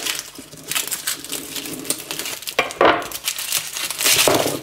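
Dry papery skin of a garlic bulb crackling and rustling as the bulb is pried apart with a knife and broken into cloves by hand on a wooden cutting board, with a few light knocks.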